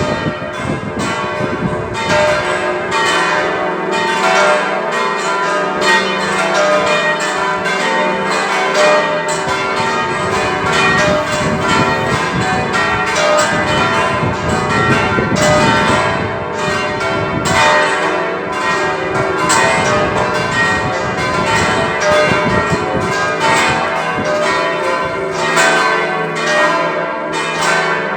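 A set of six church bells ringing together, their strikes repeating and overlapping without a break.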